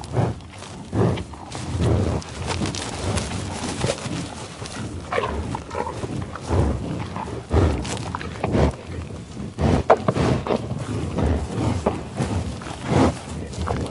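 Buffalo sniffing and eating in tall grass: an uneven run of sniffs and chewing sounds.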